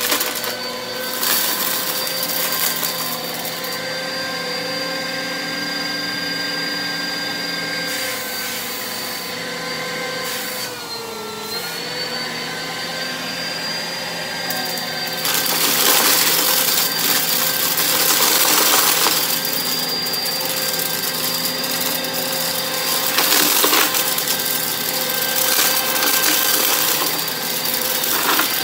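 Bissell upright vacuum cleaner running on carpet, its motor whining steadily, the pitch sagging briefly a little before halfway. From about halfway the noise grows louder with a rattling, clicking mass of debris being sucked up through it.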